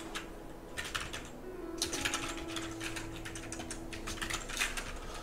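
Typing on a computer keyboard: quick runs of keystroke clicks, with a short pause about a second in.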